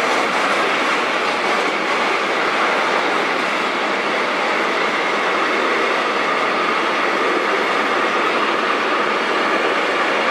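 Freight train of container flat wagons loaded with tank containers rolling past at speed: steady noise of wheels on the rails, with no break.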